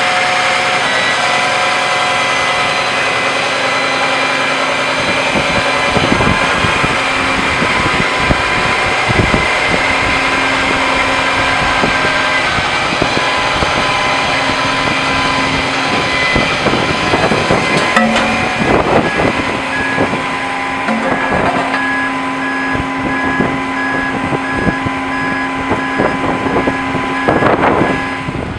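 Aerial ladder fire truck's diesel engine running steadily, with several held tones over the drone and a few knocks, clustered around two-thirds of the way through and near the end.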